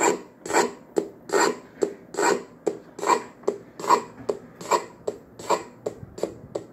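Electronic engine-sound module in a model '57 Chevy gasser playing a slow, labouring cranking sound of even, rasping strokes, about two to three a second, that weaken near the end: a sign that the model's battery is drained.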